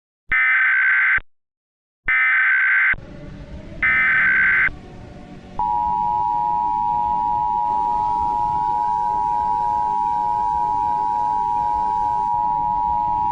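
Emergency Alert System alert tones: three short, screeching SAME header data bursts about two seconds apart, then the steady two-tone EAS attention signal, which starts about five and a half seconds in and holds. A faint hiss of static sits beneath from the third burst on.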